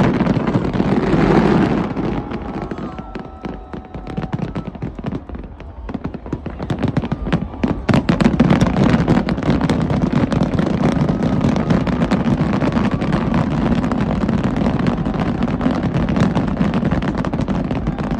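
Fireworks display going off: dense crackling and popping, many bursts overlapping. It thins out a few seconds in, then thickens again from about halfway.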